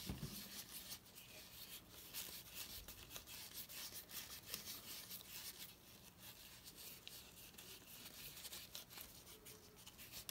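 Gloved fingers rubbing shoe grease into a leather knife sheath: faint, irregular scuffing of glove on leather.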